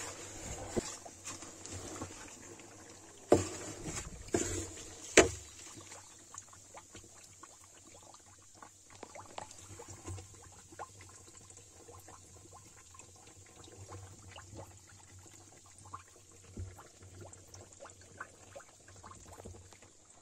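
Wet leaf mash soaked in cow urine and buttermilk, worked in a plastic drum, with faint crackling and trickling. Three sharper knocks come about three to five seconds in.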